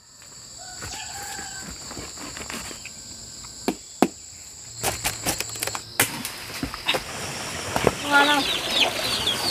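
Farmyard ambience: chickens clucking, over a steady high whine, with scattered sharp clicks and taps in the middle. The clucking grows stronger near the end.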